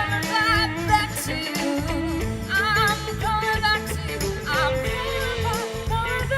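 Music from a live band performance: a wavering melody line over a steady bass accompaniment.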